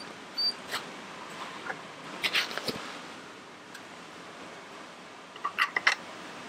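Knocks and clicks of a scoped rifle and gear being handled and lifted out of a pickup's cab, coming in two clusters, about two seconds in and, loudest, near the end. A brief high squeak sounds near the start.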